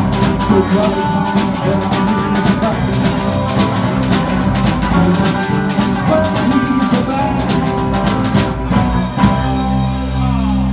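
Live rock and roll band (electric guitar, electric bass and drum kit) playing at full volume with busy drumming. About nine seconds in, the drums stop on a final hit and the band's last chord is left ringing: the song is ending.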